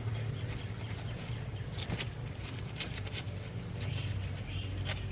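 Hand tools clicking and clinking on metal at a brake caliper as the brake line's banjo fitting is undone, with scattered sharp ticks over a steady low hum.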